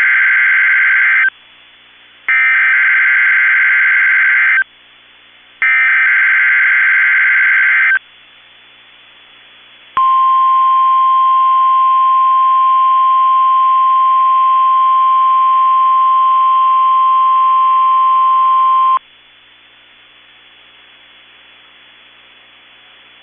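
NOAA Weather Radio emergency alert: three bursts of screechy digital SAME header data, the first already under way, each about two seconds long with short gaps between. Then the steady 1050 Hz weather radio warning alarm tone sounds for about nine seconds and cuts off, leaving faint radio hiss.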